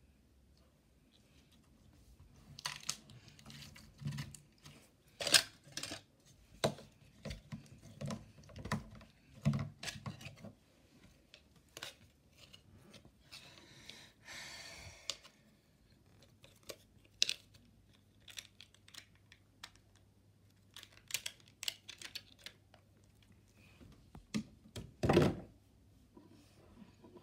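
Red slime being squeezed and stretched by hand, giving a quick run of sharp clicks and pops, followed by a brief rustle, scattered clicks and one louder knock near the end.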